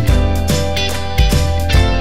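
Instrumental background music: plucked notes over deep bass notes.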